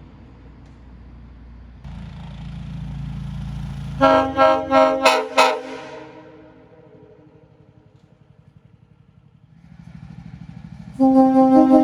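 Nathan Airchime K5CA-LS five-chime train horn blown on compressed air. A low rushing noise builds for about two seconds, then the horn's loud chord sounds in a quick series of about five short blasts. After a lull the rush rises again and a long loud blast begins about a second before the end.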